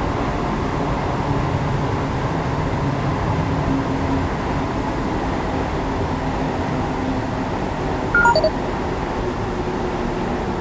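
Cabin running noise of a Montreal Metro Azur train under way: a steady rumble with a faint hum. About eight seconds in, a short electronic chime of three tones stepping downward sounds.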